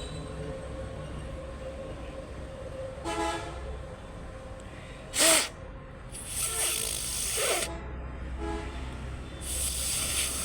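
Two bursts of hissing, each about a second and a half long, with a few short pitched sounds between them, the loudest a brief sharp one about five seconds in.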